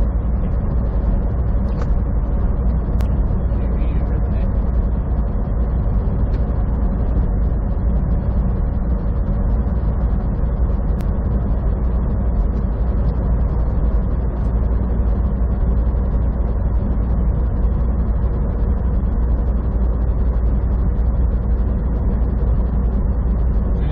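Steady drone of a semi-truck's engine and tyre and road noise at highway speed, heard from inside the cab.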